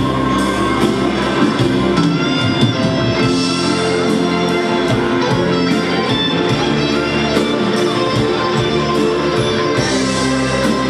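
Live rock band and wind band playing together, with electric guitar to the fore over a drum kit keeping a steady beat.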